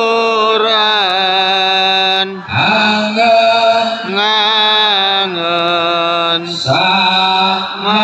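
A man's voice chanting sholawat, Islamic devotional praise of the Prophet, through a loudspeaker system, in long held phrases with ornamented bends in pitch.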